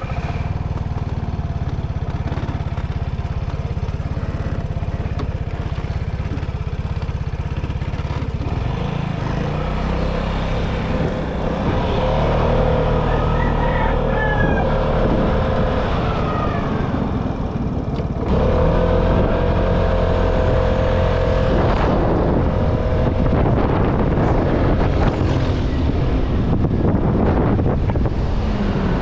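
Vespa S125 scooter's single-cylinder four-stroke engine running steadily, then getting under way: from about twelve seconds in, the engine and rushing wind grow louder and stay up.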